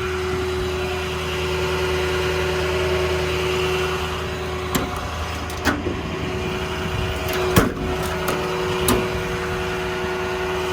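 Ford F550's 6.0 V8 diesel idling with its hydraulic air compressor switched on: a steady low hum under a constant whine. A few short clicks and knocks come about five, six, seven and a half and nine seconds in.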